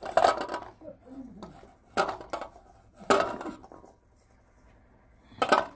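Dishes and cookware clattering: four short bursts of clinking and knocking, the last near the end.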